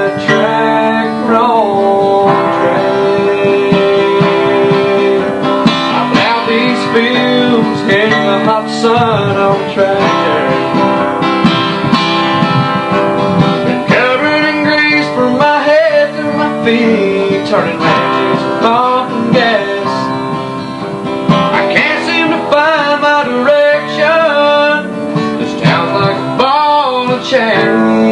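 A man singing a country song and playing an acoustic guitar.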